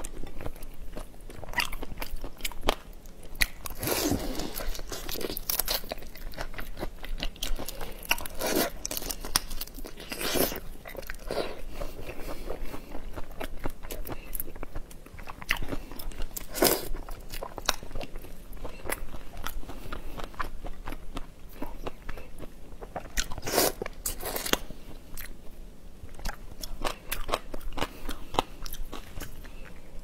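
Large whole prawns being peeled by hand and eaten close to a clip-on microphone: shells crackling and snapping in the fingers, with crunchy chewing. Dense small clicks run throughout, broken by a handful of louder crunches.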